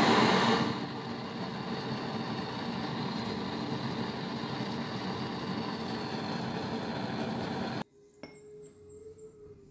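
Butane torch flame burning steadily, louder for the first second, heating a small metal part held in pliers. It cuts off suddenly about eight seconds in, and near the end there is a single click and a faint tone as the part is dipped into a bowl of oil.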